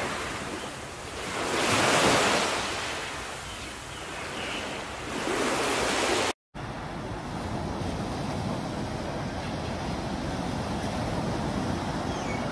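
Small sea waves washing onto a beach, the surf swelling and fading about every three seconds. About six seconds in the sound cuts out for a moment and gives way to a steadier, quieter hiss of surf.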